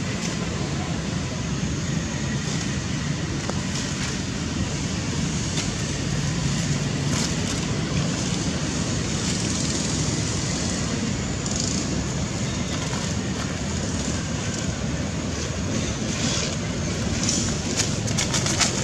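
Steady background rumble of road traffic, even and unbroken.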